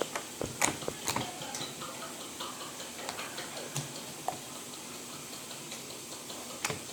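Plain white slime with beads being handled, giving scattered small clicks and crackles over a faint steady hiss. The clicks come thickest in the first second or so.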